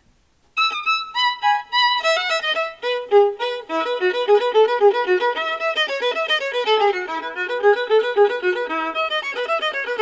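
Violin playing a quick melody of many short notes, starting about half a second in.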